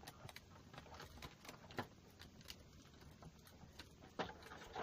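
Num Noms toy packaging being handled and opened: scattered, irregular light clicks and taps, with a louder knock about four seconds in.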